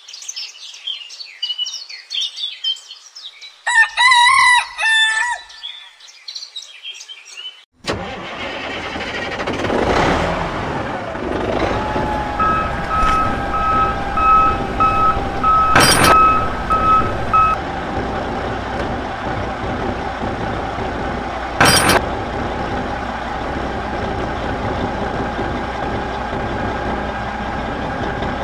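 Birds chirping and a rooster crowing once. About eight seconds in, a tractor engine sound cuts in abruptly and runs steadily to the end, with a string of short beeps for a few seconds and two sharp clicks later on.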